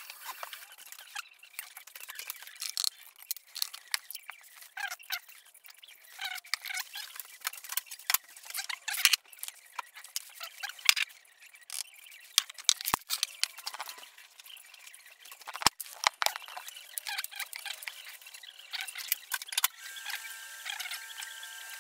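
Kitchen handling noises: scattered clicks, knocks and small squeaks of plastic food containers and lids being handled on a counter. A steady high two-note tone begins near the end.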